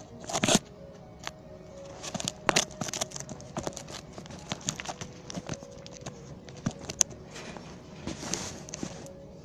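Scattered, irregular clicks and knocks over a faint steady hum, with a rustling stretch near the end.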